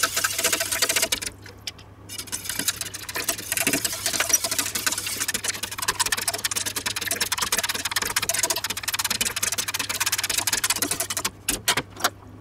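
Sauce being stirred fast in a stainless steel saucepan, the utensil rapidly ticking against the pan's sides and bottom. There is a short pause about a second and a half in, and the stirring stops near the end.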